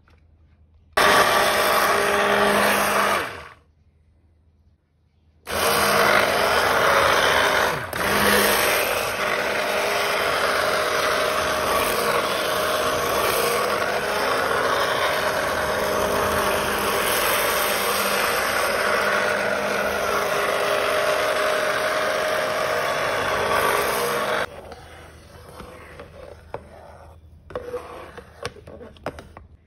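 Stick blender running in a pot of used-cooking-oil soap mixture. It switches on about a second in and stops after a couple of seconds. It starts again a moment later and runs steadily for about twenty seconds before cutting off. The blending is bringing the soap mixture to a thick, batter-like consistency.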